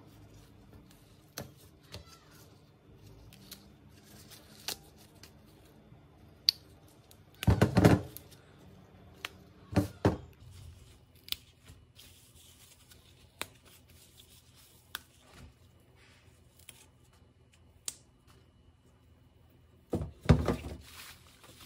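Scattered clicks, taps and knocks of objects being handled, with louder bursts of noise about 8, 10 and 20 seconds in.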